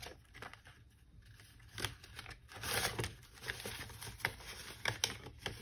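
Paper bills and cash envelopes being handled: rustling and crinkling, with a few light clicks and taps.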